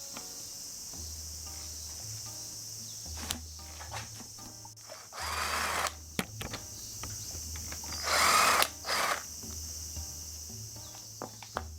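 A handheld power tool, like a drill or power driver, run in two short bursts of under a second each, with a shorter third one just after the second, among light tool clicks, over background music and a steady high insect chirring.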